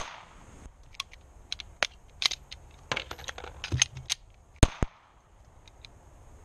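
A single shot from a Taurus PT111 9mm pistol at the very start, echoing briefly. It is followed by a run of sharp metallic clicks and clacks as the pistol is worked by hand through a malfunction drill and reload, the loudest a sharp double clack a little before the end.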